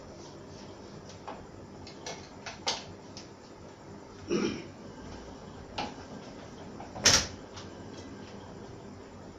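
An old hand-fed platen letterpress being worked: scattered clicks and knocks as the machine moves and sheets are handled, with a dull thud about four and a half seconds in and a sharp metallic clack about seven seconds in, over a faint steady hum.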